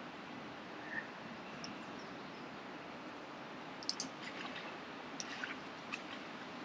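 Quiet outdoor ambience: a faint steady hiss with a few small light clicks and ticks, most of them clustered about four to six seconds in.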